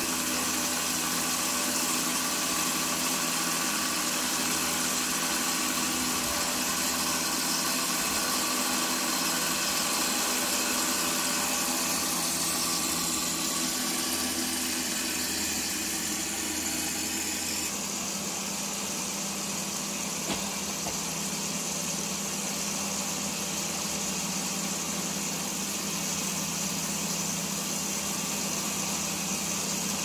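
A motor-driven machine running steadily with a constant hum; its sound changes abruptly a little over halfway through.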